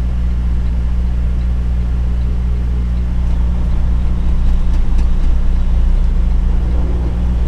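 Semi truck's diesel engine running steadily at a low, even drone, with a slight rise in level about halfway through.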